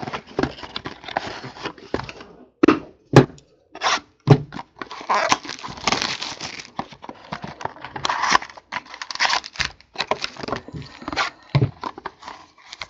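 Plastic wrapping and cardboard crinkling and tearing, with irregular clicks and knocks, as sealed trading-card boxes are handled and opened.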